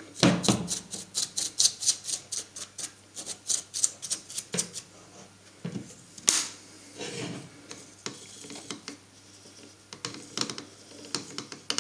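A small bristle brush scrubbing dust out of the open rear housing of a Bosch GWS660 angle grinder, in quick strokes about five a second for the first five seconds. A sharp tap about six seconds in, then scattered handling knocks and rubs against a metal bench.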